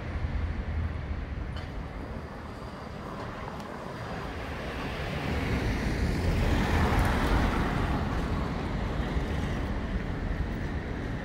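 Street traffic, with one vehicle passing that swells loudest about seven seconds in and then fades, over a low rumble of wind on the microphone.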